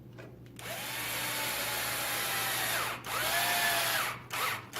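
Cordless electric screwdriver driving small machine screws into an RC truck's chassis: a motor whine that runs about two and a half seconds, stops briefly, runs again for about a second, then gives two short bursts near the end, the pitch rising as it spins up and dropping as it slows.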